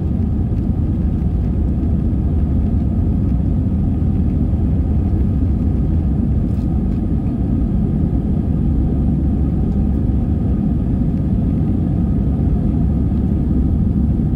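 Steady low rumble of an Airbus A320-200's engines and airflow heard inside the passenger cabin during the climb after takeoff, with faint steady tones above it.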